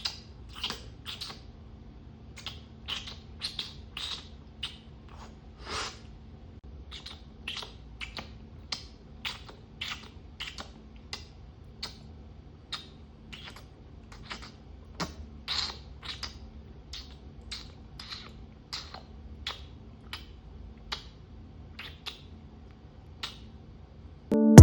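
A person's mouth making wet tongue-clicking licking sounds in an irregular run, about one and a half to two a second, imitating a cat grooming itself.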